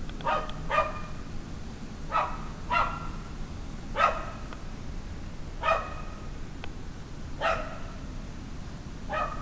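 A dog barking about eight times: two quick pairs of barks at first, then single barks a second or two apart.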